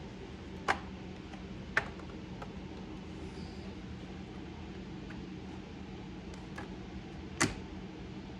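Plastic casing of a laptop being pried apart: three sharp clicks, about a second in, a second later and near the end, with a few fainter ticks between, over a steady low hum.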